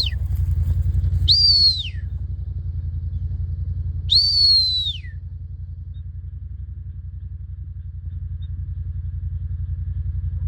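Two whistled commands from a stockdog handler to the working dog, the first short and the second about a second long, each rising quickly to a high held note and then sliding down. Under them a steady low engine rumble.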